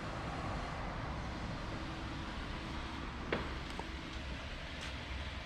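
Car running, a steady rumble of engine and road noise, with one sharp click a little past halfway.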